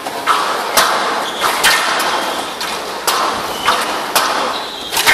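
Squash rally on a glass court: the ball cracking off racquets and walls in a string of sharp hits every half second to a second, over a steady murmur of crowd noise.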